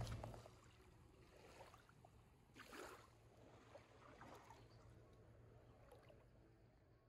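Faint sloshing of feet in sandals wading through shallow seawater over sand, with a soft splash about two and a half seconds in and a smaller one a little after four seconds.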